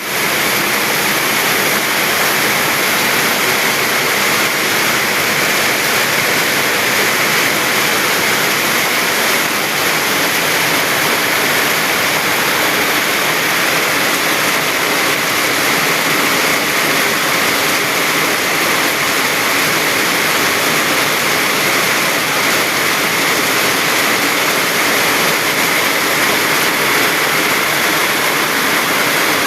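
Heavy rain pouring down, a loud, steady downpour that does not let up.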